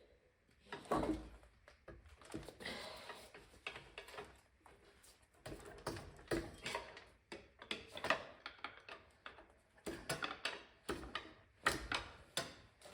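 Irregular metal clicks, clanks and knocks, with a heavier thump about a second in: tools and parts being handled while a John Deere B tractor is being split apart.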